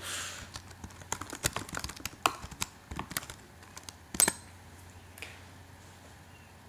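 Keystrokes and clicks on a computer keyboard: irregular taps spread over about four seconds, the loudest a little after four seconds in.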